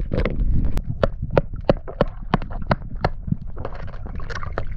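A hammer knocking oysters off a rock wall under water, a quick irregular run of sharp knocks, about three a second, heard through the underwater camera.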